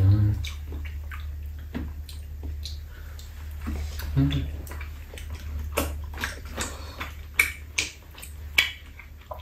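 Close, wet mouth sounds of people eating tteokbokki: chewing and smacking, with scattered sharp clicks over a steady low hum. A brief low voiced sound comes at the start and again about four seconds in.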